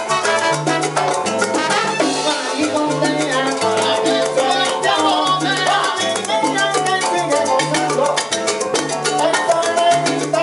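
Live salsa band playing, with trumpets and shaken maracas over a steady percussion beat and a repeating bass line.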